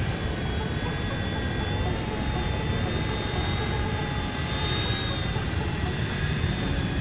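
C186 Pro remote-control helicopter in flight: a steady high whine from its electric motor over the whir of the rotor blades, growing a little louder around the middle.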